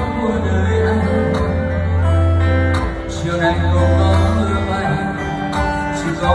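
Concert music played loud over the venue's loudspeakers, with deep sustained bass notes under the melody.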